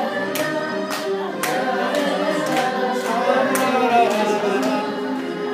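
Electronic keyboard playing a lively polka-style tune, with sharp percussive hits about once a second.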